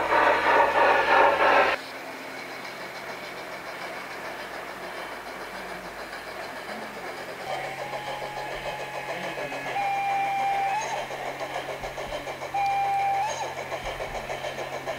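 Garden-scale model train running on outdoor track. A loud, dense rumble over a steady hum cuts off suddenly about two seconds in, leaving the quieter rhythmic clatter of the moving train. Three short, steady horn-like tones sound over it, the second and third rising at their end.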